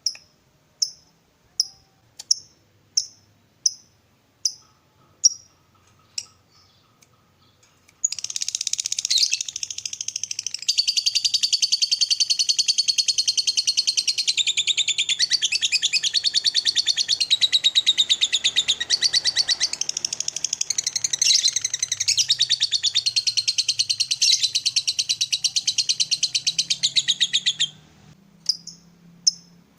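Lovebird calling: a run of short high chirps, evenly spaced at nearly two a second, then about eight seconds in a long, rapid, continuous chattering trill (the lovebird 'ngekek') that runs for about twenty seconds and stops abruptly, followed by a few single chirps.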